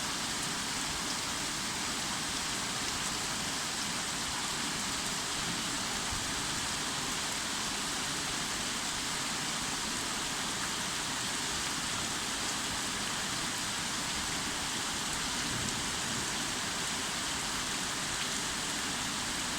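Steady rain falling on a rooftop garden, an even hiss that holds without letup.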